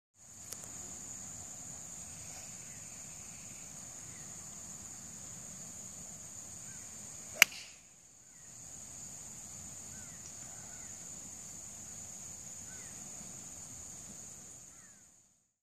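Golf club striking a ball: one sharp crack about seven seconds in, over a steady high outdoor drone.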